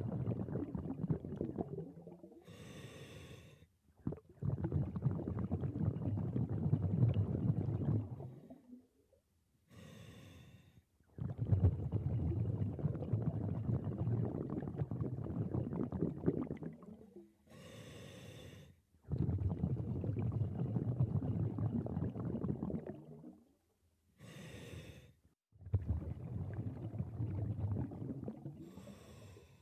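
Scuba diver breathing through a regulator underwater: a short hiss of each inhalation through the demand valve, followed by several seconds of low rumbling exhaled bubbles, about five breaths, one every six or seven seconds.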